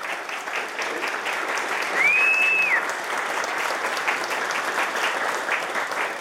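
A small audience applauding steadily, with many hand claps. About two seconds in, a single high tone rises, holds for under a second and falls away over the clapping.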